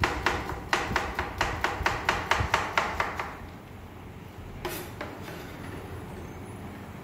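Kitchen knife chopping a carrot into thin strips on a plastic cutting board: a quick, even run of knocks, about five a second, for roughly three seconds, then it stops, with one more knock a little before five seconds in.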